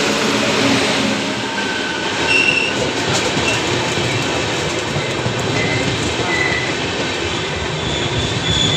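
Express train's LHB passenger coaches rushing past close alongside: a steady rumble and rattle of wheels on the track. Brief high wheel squeals come a couple of seconds in and again around the middle, and sharp clicks sound near the end.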